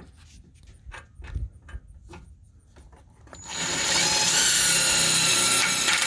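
Light clicks and taps of handling, then a power drill starts about three and a half seconds in and runs steadily with a high whine.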